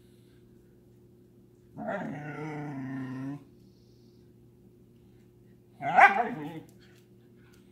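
Siberian huskies vocalizing: one drawn-out call of about a second and a half, then a short, louder bark about six seconds in. A faint steady hum runs underneath.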